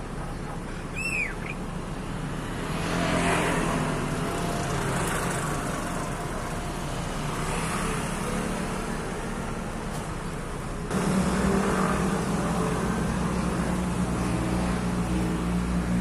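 Motor vehicle engine noise: a swell from about three seconds in, then a sudden louder, steady low hum from about eleven seconds. A bird gives one short downward chirp about a second in.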